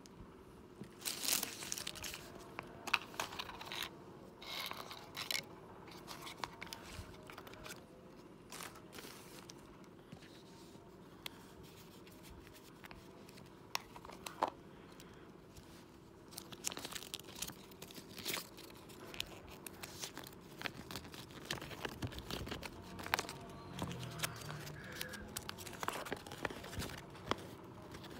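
A small cardboard toy box, a plastic capsule and a folded paper leaflet being handled: scattered clicks, taps and short rustles of card and paper being opened and torn, getting busier toward the end as the leaflet is unfolded with paper crinkling.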